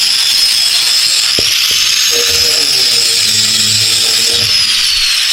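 Electric grinder running against steel to strip paint, a steady loud hissing whine whose pitch sags and recovers as it is pressed on and eased off, with two sharp clicks about a second and a half in.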